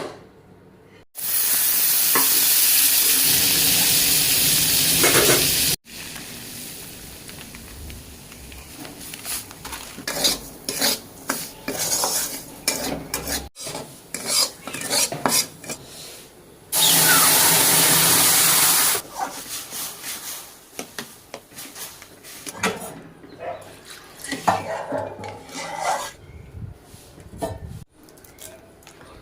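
Cooking in a pan: food sizzling loudly in two stretches, with a spoon stirring and scraping against the pan in between, across several edited clips.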